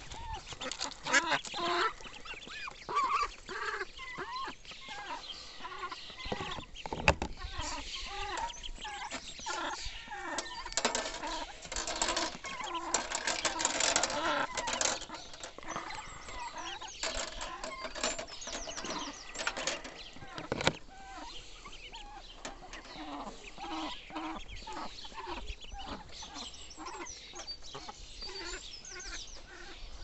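A flock of ducklings peeping with many short, high calls while they feed, with a few sharp taps scattered through.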